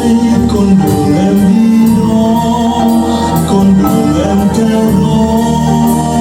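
Recorded music playing: sustained instrument notes over a steady beat.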